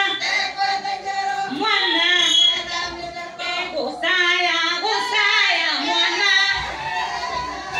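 Women singing a song together, a lead voice on a microphone, in phrases that rise and fall with a short break about four seconds in.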